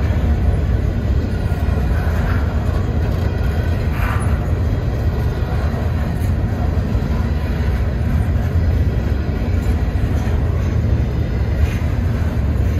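A freight train's cars rolling past with a steady, heavy low rumble. Brief higher-pitched sounds rise over it a few times.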